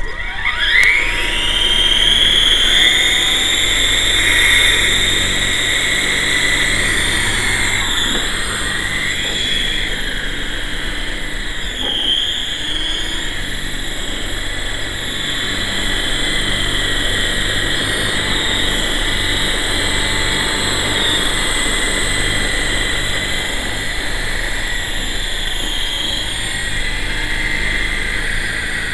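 Electric motor and rotor blades of a GT Model QS8006 RC helicopter spinning up with a rising whine, then running at a steady high-pitched whine with whirring blades. The pitch dips and recovers briefly a couple of times partway through.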